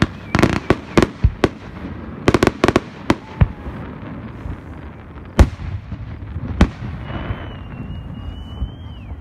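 Aerial fireworks bursting: a rapid string of sharp bangs and crackles over the first three seconds or so, then two single loud bangs about a second apart. Near the end a high whistle holds for about two seconds and drops in pitch as it ends.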